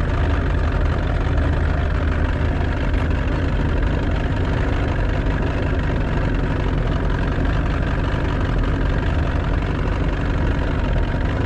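Motorboat engine running steadily, a continuous low hum.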